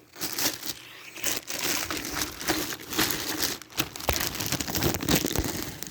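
Packaging wrap crinkling and rustling in irregular crackles as the vacuum's power nozzle is unwrapped.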